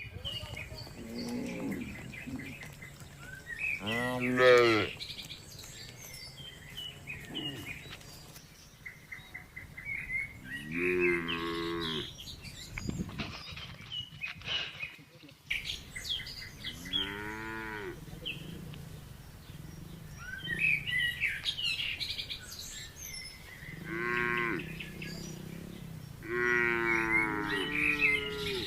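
Cows mooing, about five long calls spread out, the last two close together near the end. Small birds chirp faintly in between.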